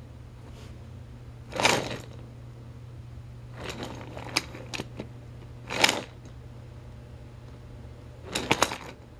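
Handling noise from a plastic toy train set: a few short rustles and sharp plastic clicks at irregular intervals, over a steady low hum.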